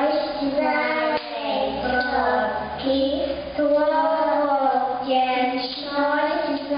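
A group of young children singing together, with held notes.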